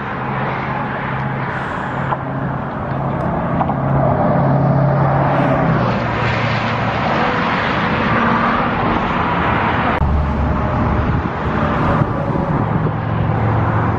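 Steady freeway traffic going past close by: a continuous rush of tyres with engine hum that swells and shifts as vehicles pass one after another.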